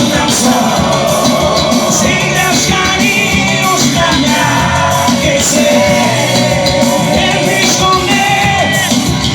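Loud live band music: a melodic lead line over a steady beat, with no lyrics heard.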